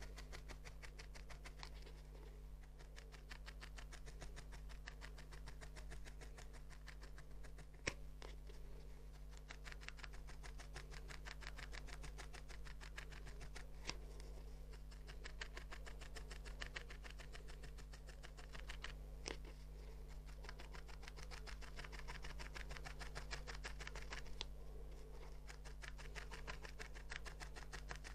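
Felting needle stabbing again and again into a small piece of wool, a fast, even run of faint soft pricks, with three sharper clicks along the way. A faint steady hum lies underneath.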